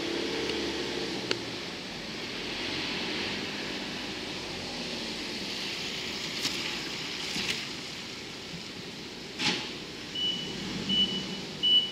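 JR Freight EF510 electric locomotive moving slowly through the yard, giving a steady running hum, with a sharp knock about nine seconds in. From about ten seconds in, a short high electronic beep repeats rapidly, a few times a second.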